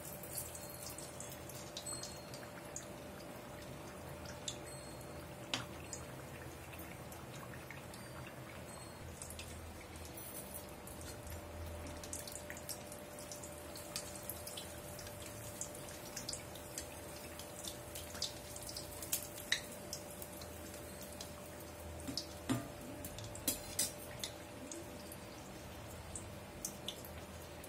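Hot oil bubbling and crackling in a small kadai as a sweet rava appam deep-fries, with scattered sharp pops and the odd clink of a slotted steel spoon. The batter ball is still cooking through.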